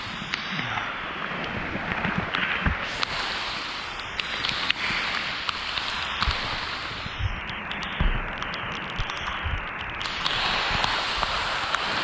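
Hailstorm: a steady hiss of falling hail and rain, with many scattered sharp ticks of hailstones striking.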